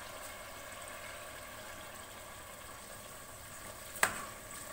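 Beef masala sizzling and bubbling steadily in a metal pot over the flame, with one sharp clink of the spatula against the pot about four seconds in.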